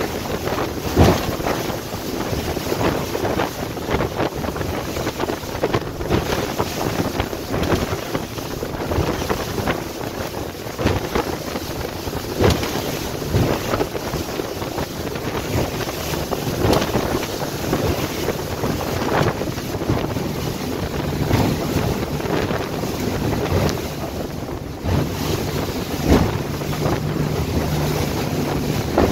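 Boat running at speed over open water, with wind buffeting the microphone and the hull thudding through the chop every few seconds. Beneath it is the steady drone of twin Suzuki 350 outboards.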